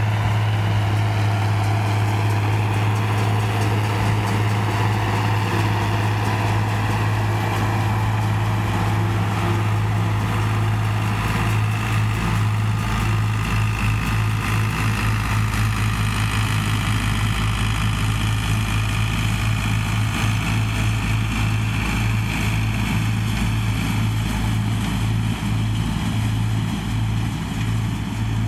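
International 1256 tractor's diesel engine running steadily under load as it drives past pulling a New Holland 790 forage chopper cutting hay, with a constant low hum and the chopper's machine noise.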